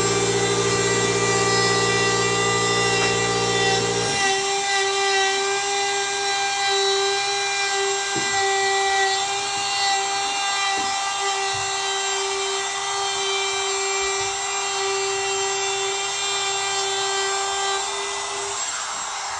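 Woodworking power tools running steadily with a hum of many steady tones; a deeper-pitched one stops about four seconds in, leaving a steady, higher whine.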